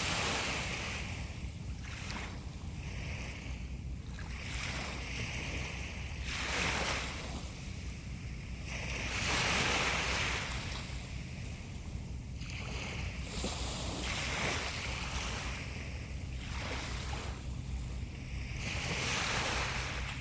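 Sea waves breaking and washing onto the shore: surges of hissing surf every few seconds, the biggest about halfway through, over a steady low rumble.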